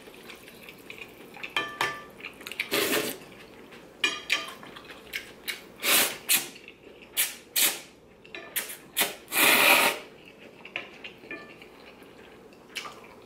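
A person slurping ramen noodles in several short, noisy pulls, the longest about ten seconds in, with light clinks of utensils against the bowl between them.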